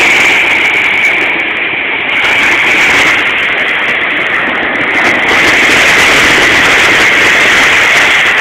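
Surf breaking on a sandy beach: a loud, steady rushing noise with no let-up.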